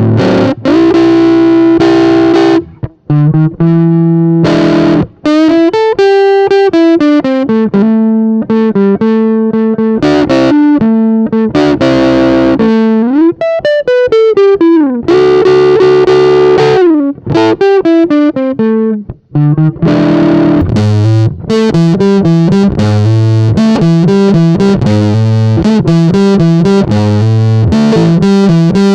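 Electric guitar, a Squier Vintage Modified Jazzmaster, played through a Big Muff-style fuzz pedal with the gain at zero: rhythm-and-blues licks of single notes and string bends. About two-thirds of the way in the playing turns to a quick choppy rhythm of fuzzed chords, with the fuzz gain raised to about 9 o'clock.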